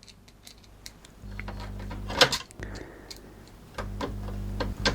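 A small electric motor runs in two spells of about a second or more each, humming steadily, with scattered clicks and knocks of the mechanism and of handling.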